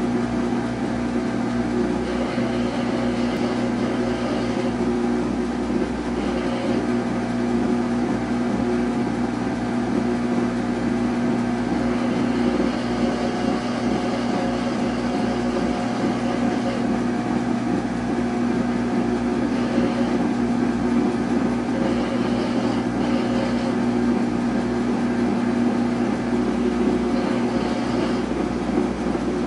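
Samsung washing machine running, its motor giving a steady hum with a fainter higher whine that comes and goes. The machine is one the owner says cannot finish its cycle.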